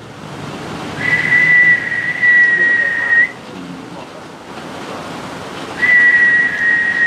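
Two long, steady high whistled notes, the first starting about a second in and the second near the end, each held two to three seconds and ending in a slight upward flick, over a steady hiss.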